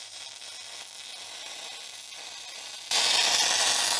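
MIG welding arc on steel plate: a faint steady hiss that jumps to a loud, even hiss about three seconds in as the arc burns.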